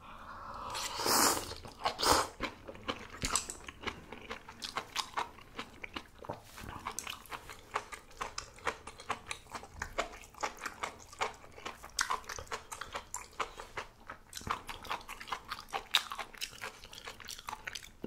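Close-up eating sounds of a mouthful of mala tang being chewed: a steady run of wet clicks, smacks and crunches.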